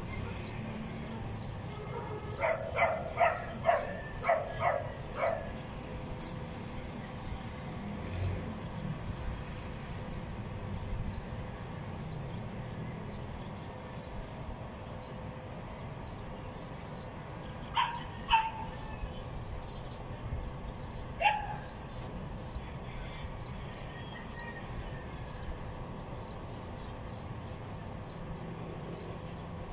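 A dog barking: a quick run of about seven barks a few seconds in, then two barks and a single bark later on. A faint, regular high ticking, about two a second, runs underneath.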